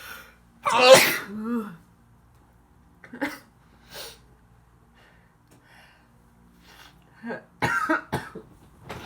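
A person sneezing during an allergic sneezing attack: one loud sneeze about a second in, ending on a falling voiced tail, then a few short quieter breaths, and another rapid cluster of sneezes near the end.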